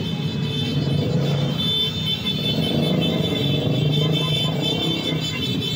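Many motorcycles and scooters running together in a big group, a steady low engine rumble with engines idling and pulling away. A steady high tone sounds over it.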